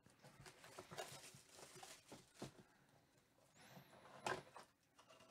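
Faint crinkling and rustling of plastic shrink-wrap being picked at and peeled off a cardboard trading-card box, with one louder rustle about four seconds in.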